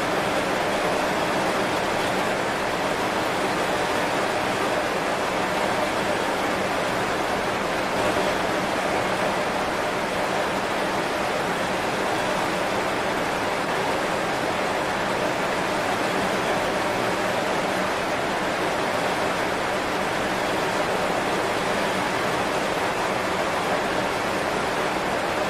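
Heavy rain falling steadily on banana leaves, a dense, even hiss with no single drops standing out.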